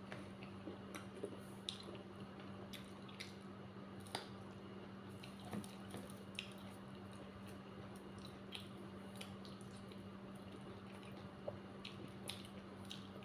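Close, quiet wet eating sounds of someone eating dhedo: scattered soft squishes, mouth smacks and small clicks, over a steady low hum.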